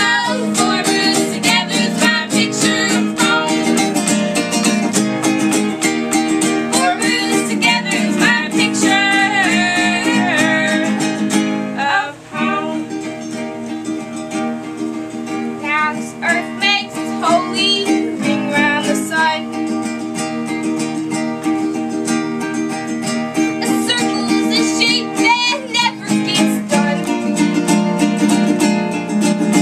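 Two voices singing a folk song together, accompanied by a strummed ukulele and acoustic guitar, with a brief break about twelve seconds in.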